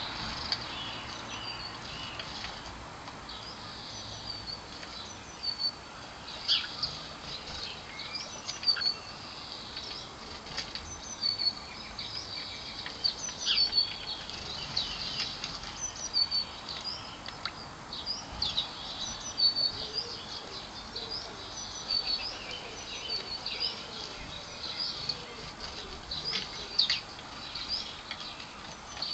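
Small garden birds chirping over and over: many short, high chirps and quick sharp calls, in irregular clusters throughout.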